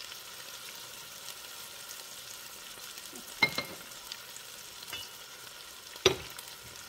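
Chuck roast sizzling steadily in hot olive oil in an enameled cast-iron Dutch oven. Two sharp knocks sound over it, one about halfway through and a louder one near the end.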